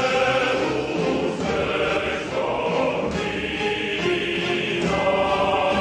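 Background music: a choir singing held chords that change every second or so.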